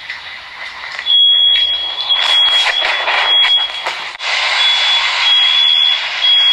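Smoke alarm sounding a piercing high-pitched tone in long beeps with short breaks, over a loud rushing noise. It is heard as a recording played back through a phone's speaker.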